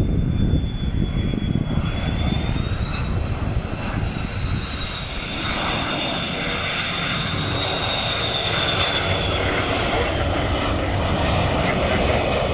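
Airbus A330-300 twin jet engines on landing approach, flying low overhead: a steady rumble with a high fan whine that rises slightly in pitch, then falls away after the middle as the airliner passes.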